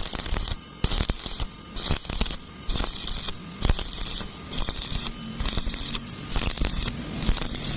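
Electric welding arc crackling on steel, the crackle swelling and easing in an even rhythm of about one pulse a second, as in a stitch or weave technique, over a steady high whine.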